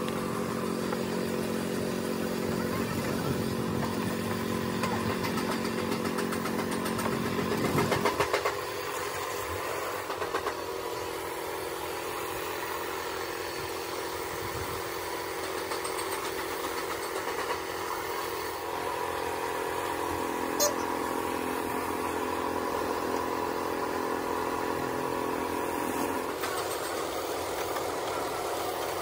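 An engine running steadily, growing louder to a peak about eight seconds in, then settling to a lower, even hum. A single sharp click comes about two-thirds of the way through.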